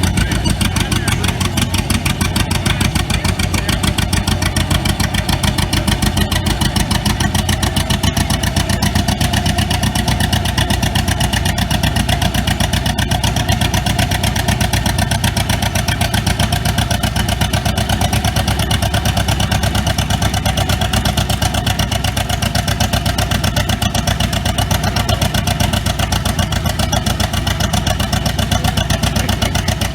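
Tractor engine running at a steady speed, its firing pulses coming quickly and evenly.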